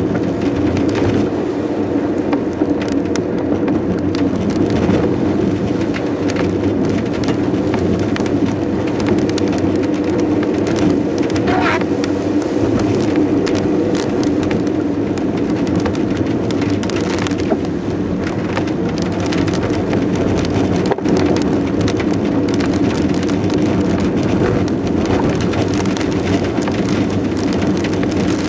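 Heavy rain drumming on a car while it drives a wet road, heard from inside the cabin, with a steady low hum of engine and tyres beneath it. A brief rising squeak sounds about twelve seconds in.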